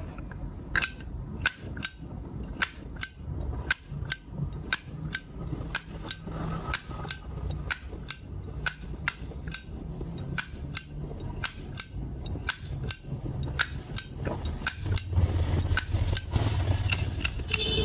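A 1974 Zippo lighter's lid flicked open and snapped shut over and over: a steady run of sharp metallic clicks, each with a high ringing ping, about two a second. It is the lighter's original clink, from an unmodified lid, hinge and cam.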